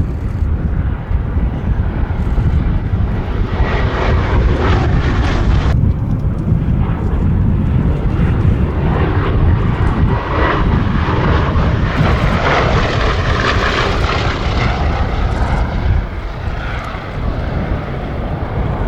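Bristol Blenheim Mk.I's twin Bristol Mercury radial engines in a flying display pass, a loud steady drone that eases a little near the end.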